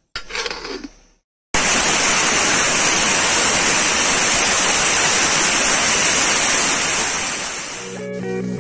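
Steam hissing out under the whistle weight of a pressure cooker, a loud steady hiss that sets in about a second and a half in and eases off near the end: the cooker has come up to pressure and is venting.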